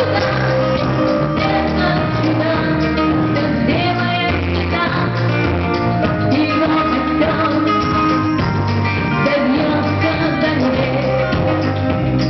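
Rock song with guitar and a sung vocal over a steady bass and beat.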